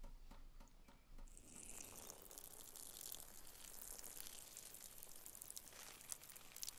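Near silence: faint ambience, a soft high hiss with scattered light crackles.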